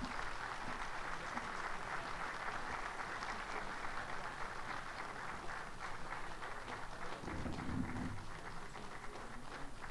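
Audience applauding steadily in an auditorium, faint and even, a dense patter of many hands.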